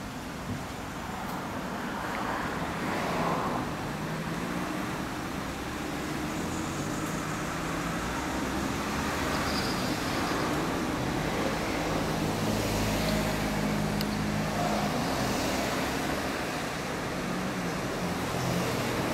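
Honda CBX1000's air-cooled inline six-cylinder engine idling steadily, with road traffic passing.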